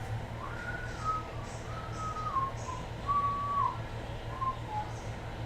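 A person whistling a slow tune, a string of held notes with small slides between them, over a low steady hum.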